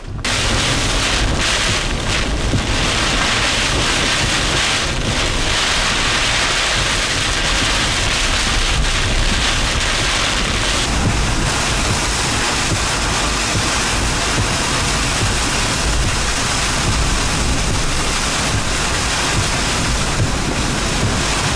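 Hurricane eyewall winds with wind-driven rain: a loud, steady rush of wind and rain, with wind buffeting the microphone.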